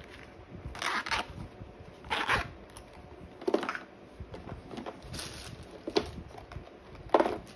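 Zipper on a fabric earbud carrying case being pulled closed in several short rasping strokes, with handling scrapes as the case goes into its cardboard box.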